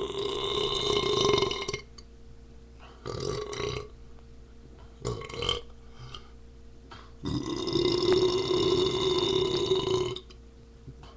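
Deliberate, drawn-out burping: a long steady burp of nearly two seconds, two brief sounds, then a second long burp of about three seconds.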